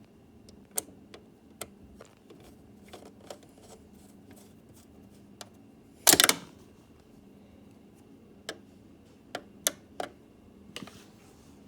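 Scattered small clicks and taps of hands working on the plastic keyboard and its parts, with one louder clatter lasting about half a second around six seconds in.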